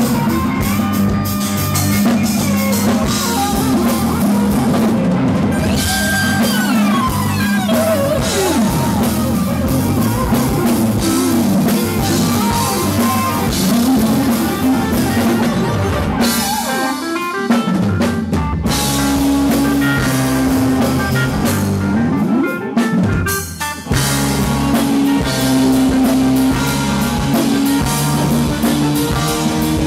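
Rock music with drum kit and guitar, which stops for a moment about 23 seconds in and changes character after the gap.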